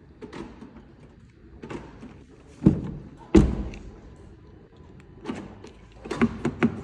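Range Rover Evoque car door being shut with two heavy thuds about two-thirds of a second apart, then a quick run of sharp clicks near the end, as the newly replaced door lock is tested.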